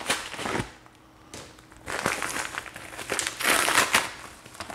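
Paper mailer package being handled and opened by hand, with crinkling and crackling paper in uneven bursts: one at the start, then more from about two seconds in, loudest around three and a half seconds.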